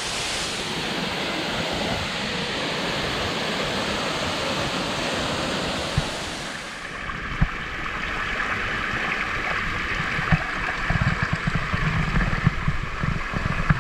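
Water of a small waterfall rushing steadily. About seven seconds in the sound changes to a thinner, slightly quieter flow, with uneven low rumbling near the end.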